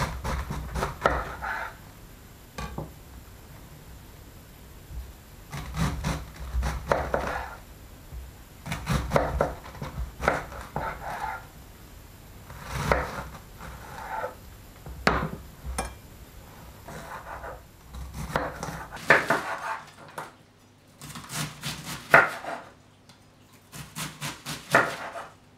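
Large kitchen knife chopping a fresh white cabbage on a wooden cutting board: bursts of quick chops, the blade crunching through the leaves and knocking the board, with short pauses between the bursts.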